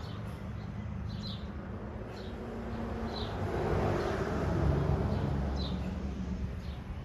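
A bird chirping, short calls about once a second, over low street traffic noise. A vehicle passes and is loudest about four to five seconds in.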